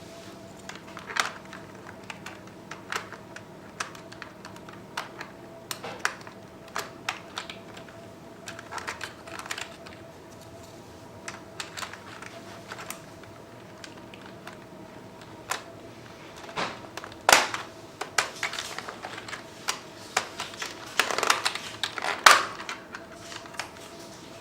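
Masione VMJ-02 keyboard keys clicking as they are pressed and keycaps pushed back into place, in irregular single clicks, with louder clusters in the second half.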